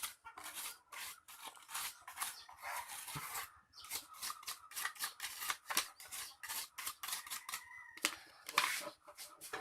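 Toothbrush bristles scrubbing dust off a Dell laptop in quick, uneven strokes, about two or three scratchy rasps a second.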